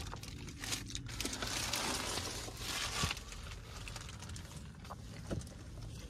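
Clear plastic protective wrap on new car seats crinkling and rustling as someone shifts and brushes against it, with a couple of light taps.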